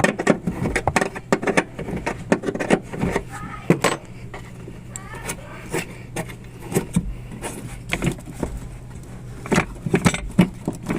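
Irregular metallic clicks and clinks of hand tools at work on a van's battery terminals and hold-down, over a low steady hum.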